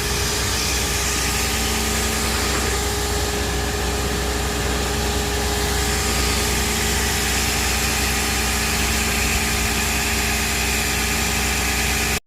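An engine running steadily at a constant speed, with a steady hum and a hiss over it, typical of the machinery working a rock core-drilling job.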